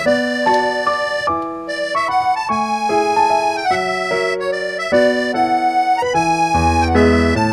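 Instrumental background music: a melody of held notes moving over sustained chords.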